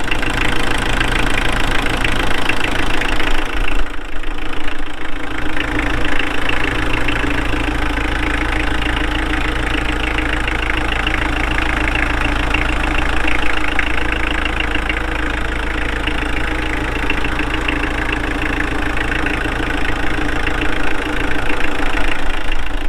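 Mitsubishi 4D56 four-cylinder diesel engine idling steadily with a diesel knock, running again after the fuel filter was changed and the air bled from the fuel system.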